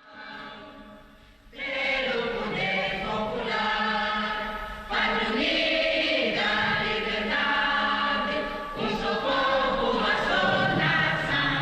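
A choir singing in harmony. It starts softly, the full choir comes in loud about a second and a half in, and it fades near the end.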